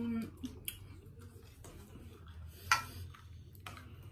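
Close-miked eating sounds: soft chewing and mouth noises, with scattered small clicks of metal forks against plates and one sharper click about two-thirds of the way through.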